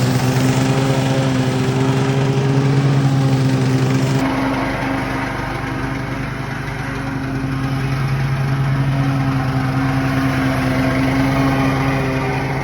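Toro walk-behind push mower's small petrol engine running steadily while mowing grass, dipping a little in level about five seconds in and then coming back up.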